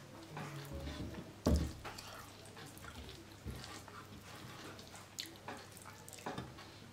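Soft, wet mukbang eating sounds: rice and dal being mixed and eaten, with small clicks and one louder thump about a second and a half in.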